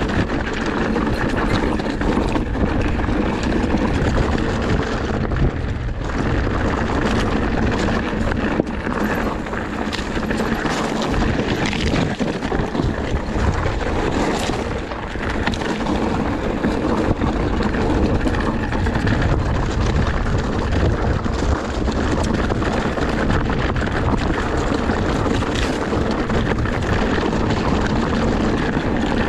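Electric enduro mountain bike being ridden over rough trail: a steady rush of wind and tyre noise on the helmet or bike-mounted microphone, with constant small rattles and knocks from the bike.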